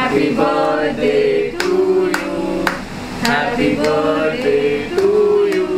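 Several voices singing a song together, with sharp beats about twice a second.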